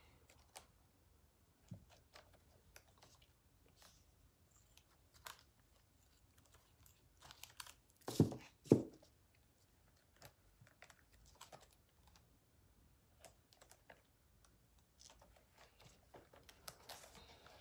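Small crafting handling noises as a soft stick-on stencil is worked around a shoe: scattered light clicks, taps and rustles, with two louder knocks about half a second apart roughly eight seconds in.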